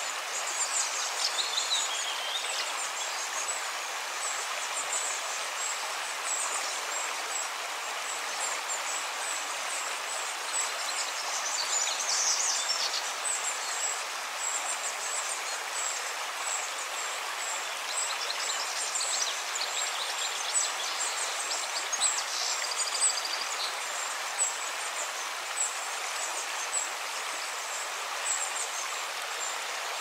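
Recorded nature sounds: the steady rush of a flowing stream, with birds chirping and trilling now and then.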